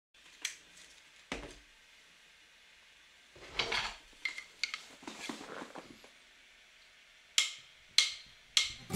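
Metal slotted spoon clinking and scraping against a frying pan and a plate as fried beans and potatoes are served: a scatter of sharp clinks with short scrapes between them, and three quick clinks near the end.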